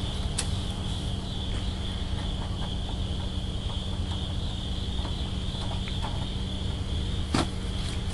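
Insects droning steadily in one high, unbroken pitch over a steady low rumble, with a few faint clicks or light steps.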